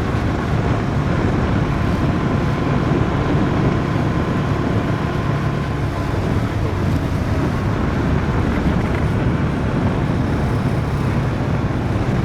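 Motorcycle engine running steadily at cruising speed, with wind rushing over the helmet microphone.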